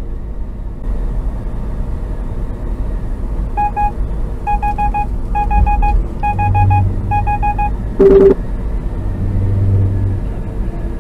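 Steady vehicle engine and road rumble inside the cab. From about three and a half seconds in come five quick runs of short electronic beeps, about four beeps to a run, then one short, loud horn honk just after eight seconds.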